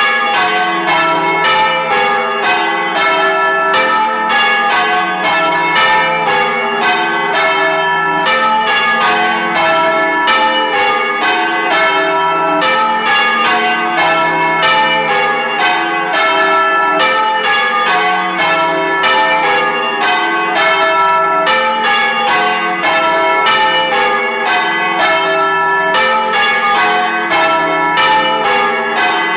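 Church bells being change rung, one bell striking after another in a steady, unbroken rhythm of several strokes a second, each note ringing on under the next.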